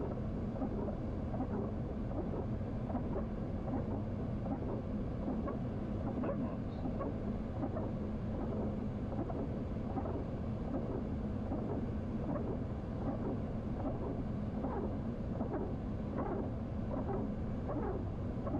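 Steady airflow and engine noise inside an airliner cockpit on final approach, with a steady low hum, windscreen wipers running, and many small irregular ticks of rain striking the windscreen.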